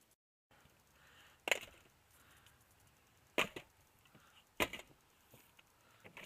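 Three sharp clicks, the first about one and a half seconds in and the others roughly two and one seconds after it.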